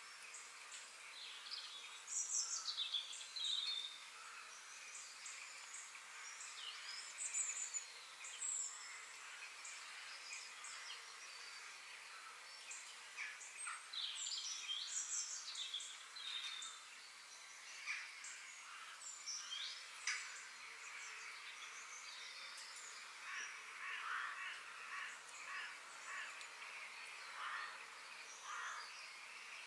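Woodland birdsong: several small birds chirping and singing, with short overlapping calls and trills throughout.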